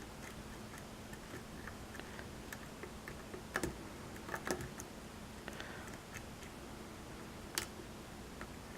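Faint, scattered clicks and ticks of a lock pick working the pins inside a pin-tumbler lock held under tension, with a few sharper clicks in the middle and one near the end.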